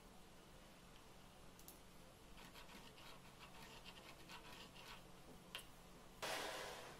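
Ballpoint pen scratching along a metal straightedge as a line is drawn on masking tape: a run of faint, short strokes. A single click follows, and near the end a louder, brief rustling scrape that fades.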